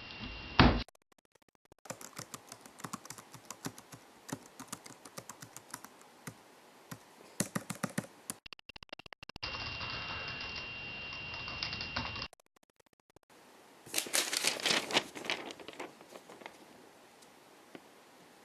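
Typing on a computer keyboard: quick irregular key clicks in long runs, broken in the middle by about three seconds of steady hiss with a thin high whine, then a second burst of typing that trails off.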